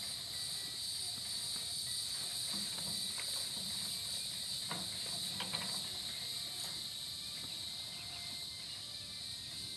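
Steady high-pitched drone of insects calling, with a few faint knocks and rustles in the middle.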